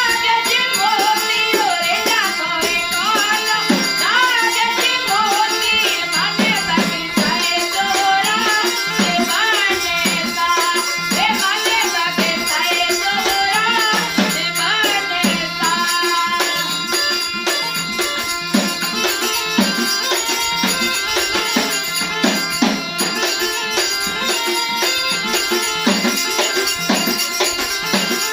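Rajasthani folk music: a lead melody with sliding, ornamented pitches over a steady drum beat and jingling, rattling percussion. The sliding lead fades out about halfway through, leaving the held accompaniment and percussion.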